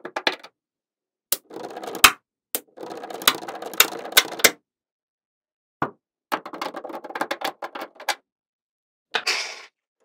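Small magnetic balls clicking and rattling against each other as a sheet of them is peeled up and folded, in bursts of rapid clicks with a few sharper snaps, separated by silent gaps. A short sliding swish comes near the end.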